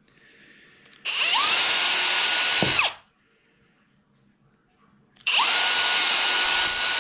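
Milwaukee cordless drill driving a screw into a cedar board, in two runs of about two seconds each. Each run spins up quickly and holds a steady whine. The first winds down about three seconds in, and the second starts about two seconds later.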